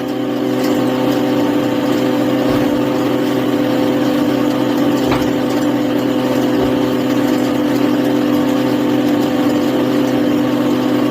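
A power saw's motor running steadily at a constant pitch, not cutting, between cuts into the wood.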